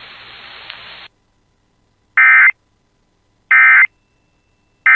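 Emergency Alert System end-of-message data bursts: after about a second of receiver hiss that cuts off, two short, loud, buzzy digital tone bursts sound about 1.3 s apart, with a third starting at the very end. They signal that the alert message is over.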